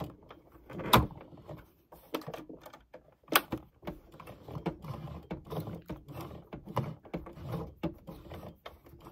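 Sewing machine stitching slowly, one stroke at a time, through a thick point of layered cotton. It gives irregular clicks and knocks, the sharpest about a second in and again at about three and a half seconds, as it strains against the bulk of fabric under the needle.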